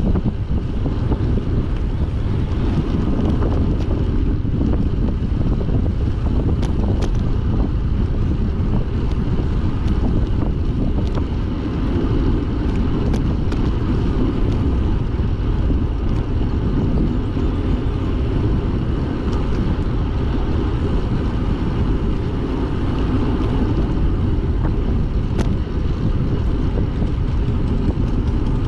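Heavy wind buffeting the microphone of a camera on a moving rider, a steady low rumble throughout, with a couple of faint ticks.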